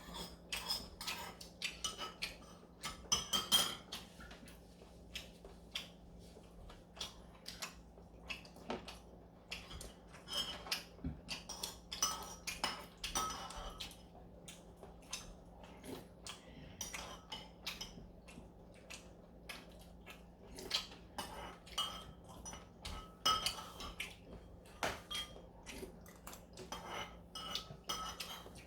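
Cutlery clinking and tapping against bowls and dishes as people eat galbitang, in many irregular sharp clinks, with a faint steady low hum underneath.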